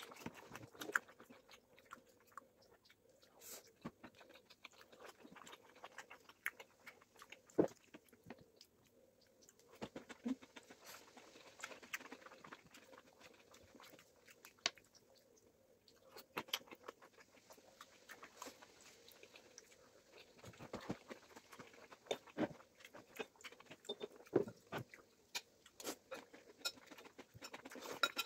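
Chewing and biting into sushi rolls close to the microphone: irregular wet mouth sounds with scattered sharp clicks, busier in the last third.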